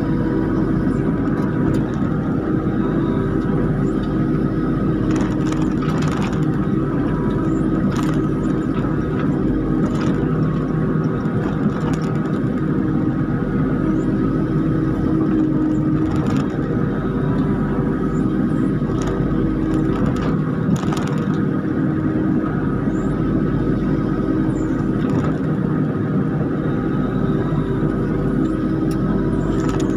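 Kubota KX91-3 mini excavator's diesel engine running steadily under hydraulic load as its grapple works, heard from the operator's seat, with occasional short knocks of rubberwood logs being gripped and moved.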